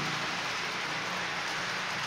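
H0-scale model tank wagons rolling along the track: a steady hiss of small wheels on the rails with a low hum underneath, easing off slightly as the train moves away.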